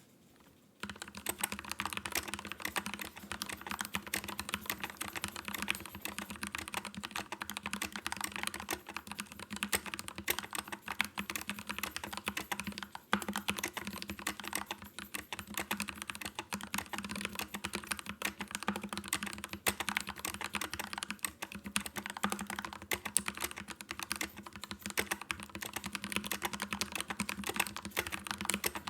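Keyboard, probably mechanical, typed on quickly and continuously in a rapid, uneven stream of key clicks, starting about a second in. The spacebar is loud, which the owner puts down to its stabilizers. A faint steady low hum lies underneath.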